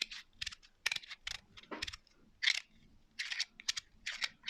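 Magnetic fidget slider with Vibram-faced 3D-printed plates being slid and snapped back and forth by hand: an irregular run of quiet clicks and short scrapes, several a second.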